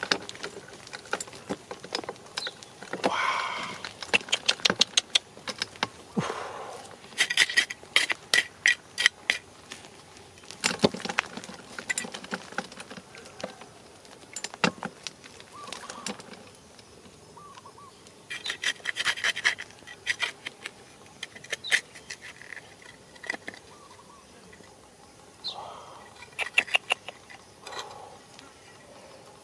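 Hands scraping and brushing through dry, gravelly soil, with bursts of rapid clicking as small stones and grit rattle together. The clicking comes in several short clusters separated by softer scraping.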